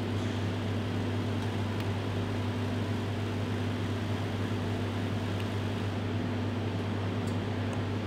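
Steady low hum of a ventilation system, running evenly with no change.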